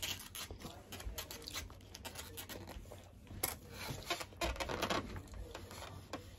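Close-miked eating sounds: chewing and soft mouth clicks, with light rustling, in quick irregular succession.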